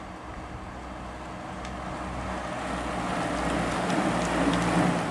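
A motor vehicle approaching along the road, its engine hum and road noise growing steadily louder and peaking near the end.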